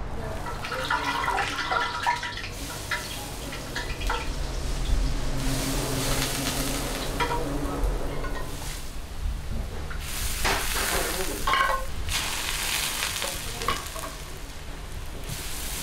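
A metal ladle scooping and pouring the cooking liquid in a large copper pot of steaming pilaf rice: repeated waves of splashing and sloshing, with clinks of the ladle against the pan and the pot's rim.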